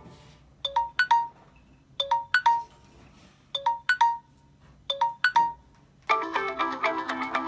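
Samsung Galaxy Note 9 stock ringtone playing from the phone's speaker: a short phrase of high notes repeated four times with brief pauses, then a different, fuller ringtone starts about six seconds in.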